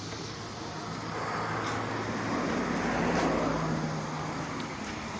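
A vehicle's engine and road noise while driving, the engine hum rising in pitch about halfway through as the noise swells to a peak and then eases off.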